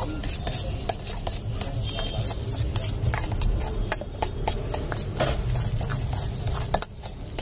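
A metal spoon stirring and scraping a vegetable filling in a stainless steel bowl, with many quick, irregular clinks and scrapes of spoon on steel.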